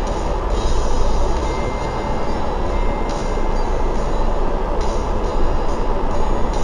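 Steady rumble of a double-decker bus heard from its top deck while it drives: engine and road noise, with short rattles now and then.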